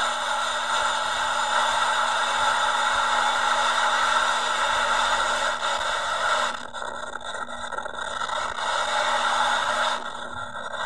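Jet engines of an Airbus A320-family airliner running steadily as it turns on the runway. The engine noise drops off briefly twice, about two-thirds of the way through and again near the end.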